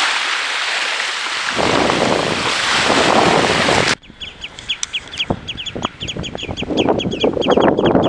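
Small waves washing onto a sandy shore, with wind buffeting the microphone. About four seconds in the sound cuts to rapid, repeated high bird chirps over a low wind rumble that grows toward the end.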